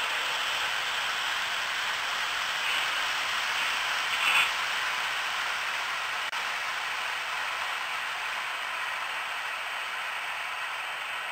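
Steady mechanical whirring hiss from an HO scale model railroad layout, with a brief louder clatter about four seconds in.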